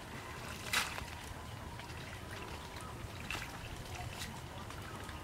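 Water trickling and splashing as a wet fishing net is hauled by hand out of the water into a wooden boat. There is one sharper splash about a second in and a few lighter ones later.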